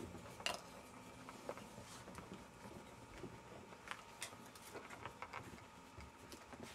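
Faint, scattered clicks and taps of a Jack Russell terrier's claws on a wooden floor, the sharpest about half a second in.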